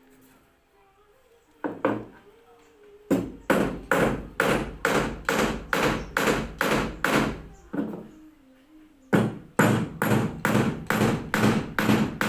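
Hammer blows on wood in steady runs at about two to three strikes a second: two strikes near the start, a run of about ten, a brief pause, then another run of about ten.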